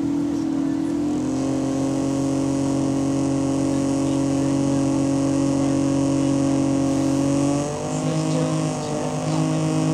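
Bus engine running steadily under way, heard from inside the passenger saloon, holding one even pitch with several tones; about eight seconds in it briefly drops in loudness and its pitch shifts.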